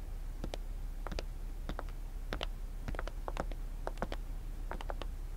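Footsteps of several people walking on a hard floor: a string of sharp, uneven clicks, two to four a second, including high heels, over a steady low room hum.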